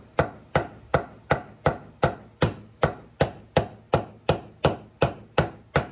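Small hammer tapping the steel needle-bearing cup of a new universal joint into a Triumph Spitfire axle yoke, working it in slowly: a steady, even run of sharp metal taps, a little under three a second.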